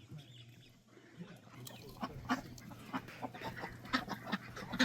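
A flock of chickens clucking, many short calls overlapping, growing busier about two seconds in.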